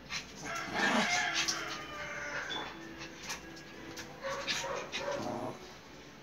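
Two Shih Tzus, a puppy and an older dog, vocalising as they play-fight: short dog yips and whines, in two louder bouts, about a second in and again near five seconds.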